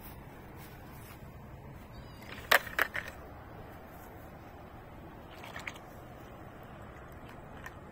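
A quick run of three sharp clacks about two and a half seconds in, and a couple of fainter clicks a few seconds later, over a steady low outdoor hum.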